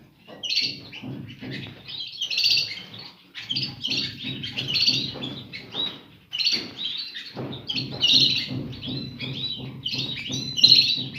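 Small cage finches chirping rapidly, many short high calls overlapping, with a brief lull a little past the middle. A soft low rustling runs underneath.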